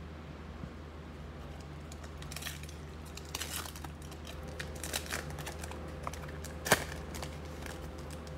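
Trading-card pack wrapper crinkling and tearing open, in a few scattered rustles with one sharp crackle about two-thirds of the way through, over a steady low hum.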